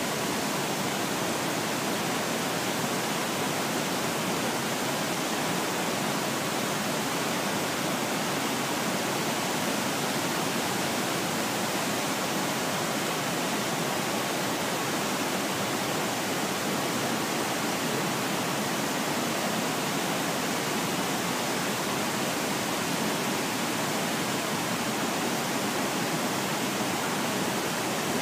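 Mekong River cascades and rapids pouring over rock ledges: a steady, even rush of whitewater that does not change.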